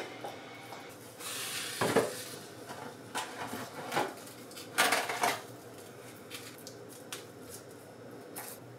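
Stainless steel baking tray and wire rack clinking and knocking as they are handled, a handful of short metallic knocks with the loudest about two seconds and five seconds in.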